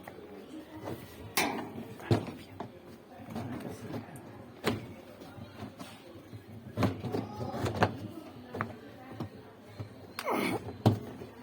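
Irregular knocks and clicks of parts being handled on a Haceb Pandora washing machine being taken apart for maintenance, with a short scraping slide about ten seconds in.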